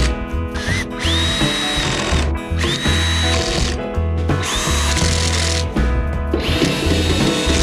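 Cordless power drill driving in the side-shelf screws of a gas grill, in about four short runs. Each run is a whine that spins up fast and holds steady for about a second before stopping.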